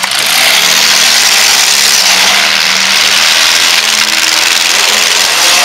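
Several four-cylinder compact demolition derby cars' engines running and revving together in a loud, steady din.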